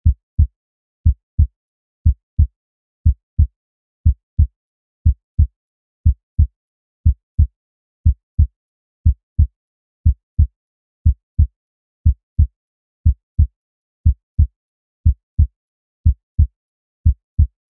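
Heartbeat sound effect: a steady lub-dub, two low thuds about a third of a second apart, repeating about once a second.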